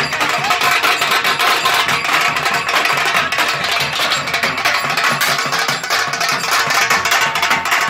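A Nashik dhol group drumming: several large barrel dhols and smaller steel-shelled drums struck with sticks, beating a loud, fast, unbroken rhythm of dense strokes.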